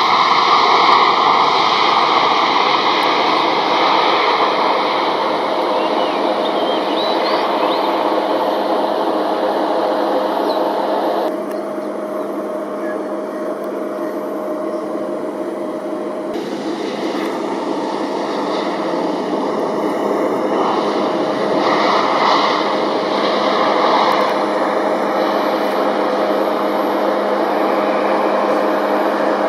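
Jet airliner engines making a loud, steady roar, first a Boeing 767-200 rolling out in reverse thrust after touchdown. The sound drops abruptly about eleven seconds in, then builds again as a Boeing 737-800 lands.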